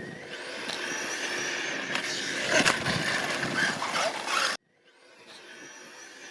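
RC car being driven: its motor whines, rising and falling in pitch with the throttle, over a rough scraping and crunching noise with a few sharp knocks. About four and a half seconds in it cuts off abruptly, and a fainter whine comes back.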